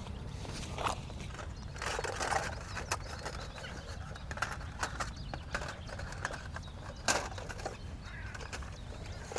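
Irregular clicks and knocks, the sharpest just after seven seconds, with a brief rustle near the start, over a low steady rumble.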